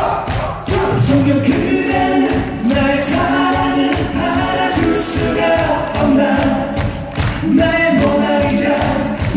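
Live upbeat song performance: voices singing held, melodic lines over an amplified backing track with a steady beat.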